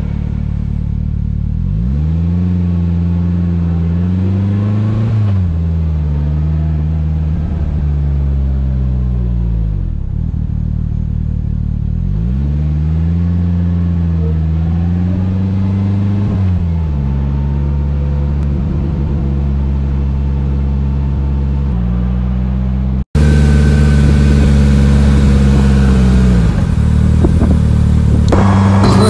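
Polaris Slingshot's engine pulling through the gears, its pitch climbing and then dropping back at each upshift, with stretches of steady cruising between. About 23 seconds in the sound cuts abruptly to a brighter recording of the vehicle running.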